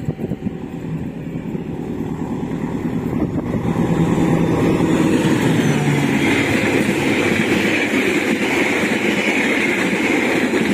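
KAI CC 206 diesel-electric locomotive and its passenger coaches passing close at speed. The noise of engine and wheels on rail builds over the first four seconds, then holds as a steady, loud rolling rush while the coaches go by.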